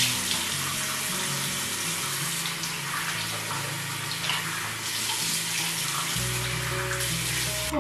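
Bathroom tap running steadily into a sink while water is splashed onto the face to rinse off a clay face mask. Soft background music plays underneath.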